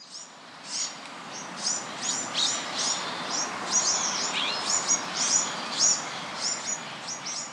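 Small birds chirping: short, high, downward-sliding chirps repeating two or three times a second over a steady hiss, fading in over the first second.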